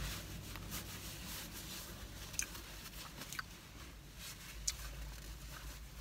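Paper napkin crinkling and rustling as hands are wiped, with a few sharp crackles about two and a half, three and a half and near five seconds in, over a low steady hum.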